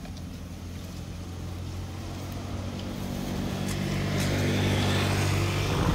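A motor vehicle's engine running with a steady low hum, growing louder as it approaches, with a rising rush of noise from about halfway in.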